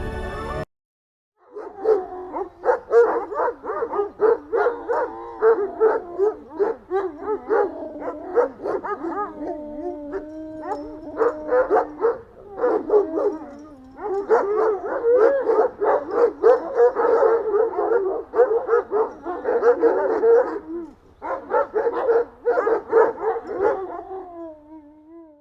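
A pack of canines howling and yipping together: many overlapping wavering howls under quick runs of yips. It starts after a moment of silence, pauses briefly twice and fades near the end.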